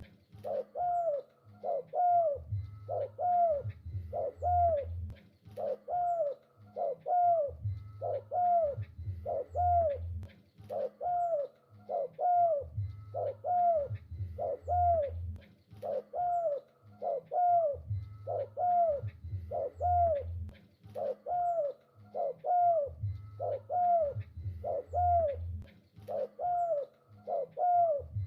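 Spotted dove (tekukur) cooing continuously, a steady series of rounded, arching coo notes repeated about once a second.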